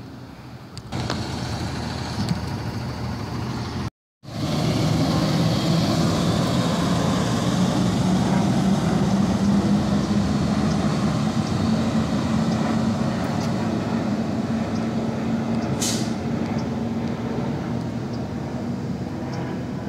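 Garbage truck's diesel engine running loud as the truck pulls away down the street, its pitch rising a little, then holding steady and fading near the end. The sound cuts out briefly about four seconds in, and there is a brief hiss about three-quarters through.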